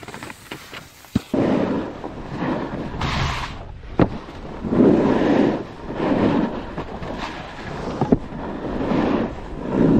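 Snowboard edges scraping over groomed snow at speed, with wind buffeting the helmet camera's microphone. The rushing noise swells and fades with each turn, and a few sharp knocks come through.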